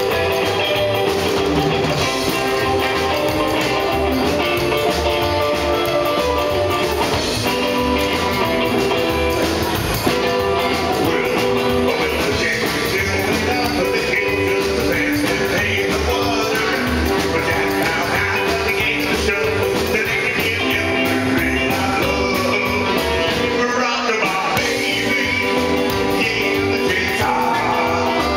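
Live rock and roll band playing: a man singing over electric guitar and saxophone.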